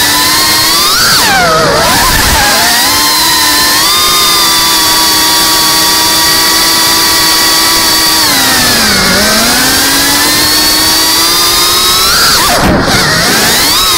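FPV quadcopter's brushless motors and propellers whining as the throttle changes: the pitch holds steady for a few seconds, dips about nine seconds in and climbs back, then swoops up and down sharply near the end.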